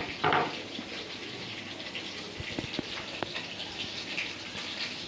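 Fish curry sizzling and bubbling steadily in a cooking pan, with a short clatter just after the start.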